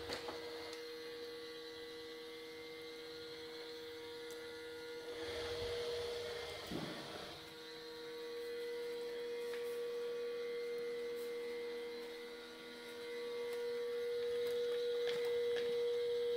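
Vorwerk Kobold VR300 robot vacuum running as it manoeuvres back onto its charging base: a steady motor hum with a constant whining tone, dipping briefly twice.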